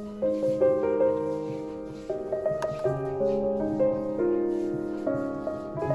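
Background music: a gentle piano melody with struck notes and chords.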